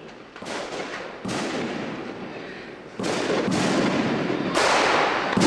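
Noisy din of a crowded club picked up by a home camcorder's microphone, with no music. It grows louder in steps about one, three and four and a half seconds in.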